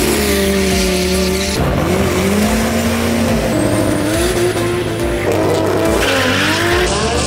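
Drag-race cars revving hard with tyres spinning and squealing through burnouts and launches. The engine note holds high, then rises and dips, changing abruptly several times as clips cut from one car to another.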